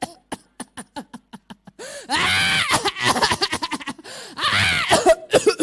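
A man acting out a violent coughing fit into a microphone: a quick run of short sharp coughs, then two long, strained, drawn-out gasping sounds.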